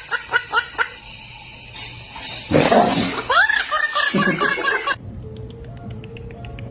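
A talking bird imitating laughter: a run of short, high 'ha-ha' notes, then a second, louder laughing burst from about two and a half seconds in that stops about five seconds in.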